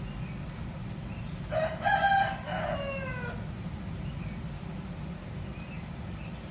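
A rooster crowing once, a held call that falls in pitch at its end, over a steady low background rumble.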